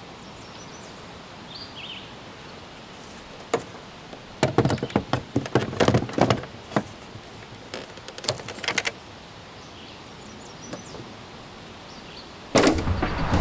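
Trolling motor being set down and latched onto its quick-release mounting bracket: a series of clunks and clicks, loudest in the middle, over quiet outdoor ambience with a few faint bird chirps. Music comes in near the end.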